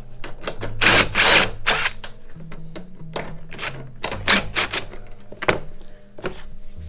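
Power driver running in several short bursts, backing out the bolts and screws of a small engine's cooling air baffle and shroud. The longest burst comes about a second in, over a steady bass line of background music.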